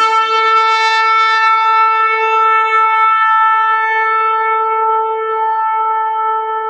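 Shofar sounding one long held note that slowly weakens toward the end.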